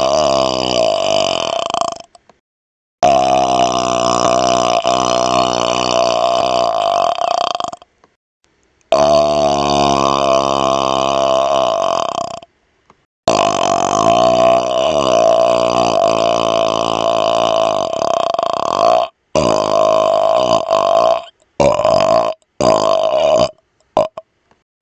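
A man burping on command: long, drawn-out pitched burps, several lasting four to six seconds each, separated by short silent gaps. Near the end comes a quick run of shorter burps.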